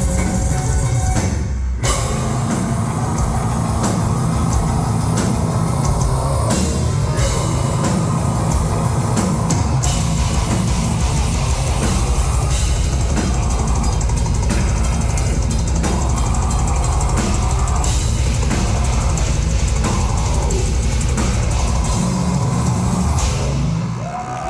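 Loud live heavy metal played by a band, with dense, pounding drum kit. The music stops dead for an instant about two seconds in, then crashes back in.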